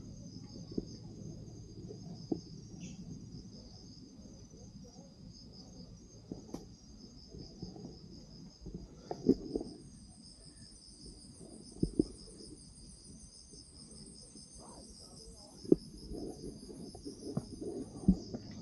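Insects chirring in a steady pulsing trill, with a second, higher-pitched insect trill joining about halfway through. Scattered knocks and thumps sound underneath, a few of them sharp and louder than the insects.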